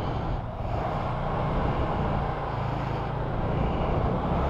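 Vespa Primavera S 150 scooter's single-cylinder four-stroke engine running under load as it climbs a ramp, a steady hum that grows slightly louder.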